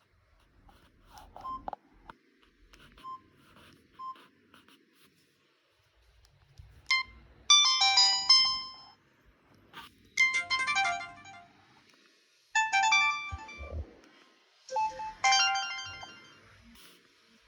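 Samsung SGH-C270 mobile phone playing its short polyphonic tones through its small speaker: a few faint keypad clicks and beeps, then four separate short jingles of about a second and a half each, with pauses of about a second between them.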